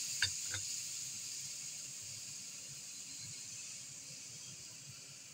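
A frying pan of grated bottle gourd in ghee hissing as milk is poured in, with two light clicks in the first second. The sizzle slowly dies down as the pan takes the milk.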